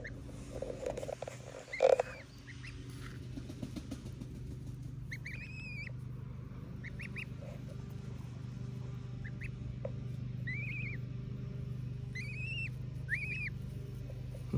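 Canada goose and white domestic goose goslings peeping: short, high, arched whistled calls every second or two, with one louder, lower call about two seconds in. A steady low hum runs underneath.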